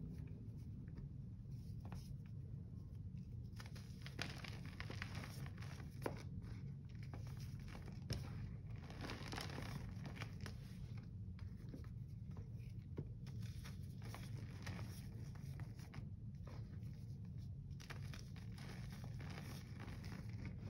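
Gloved hand crumbling chunks of Comet powdered cleanser and letting the powder sift through the fingers into a sink: soft crunching and crinkling with a few sharper crackles, over a low steady hum.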